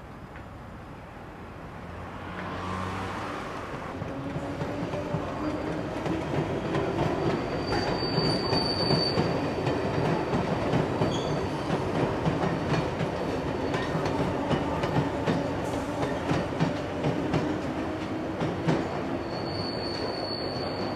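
London Underground train running on the rails, growing louder over the first few seconds, then a steady rumble with clattering wheels over the rail joints. A high wheel squeal comes briefly about eight seconds in and again near the end.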